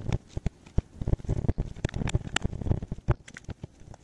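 Irregular clicks, taps and knocks of a battery chainsaw's hard plastic housing halves being handled and fitted back together.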